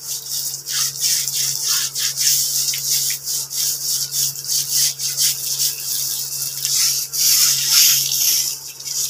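Hand brush scrubbing the wet, detergent-sprinkled woven strapping of a charpai in quick rasping strokes, several a second, growing into a longer hiss around seven seconds in. A low steady hum runs underneath.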